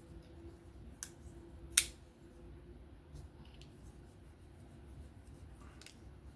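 Folding knife being worked by hand: a few sharp clicks as the blade is swung and the lock snaps, the loudest about two seconds in, with fainter ones later. The knife's action is being worked in again after cleaning and reassembly.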